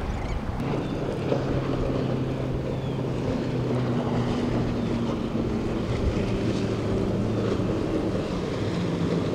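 Cruise ship engines producing a low, steady drone, with a few held tones that shift in pitch now and then, over a wash of wind and water noise.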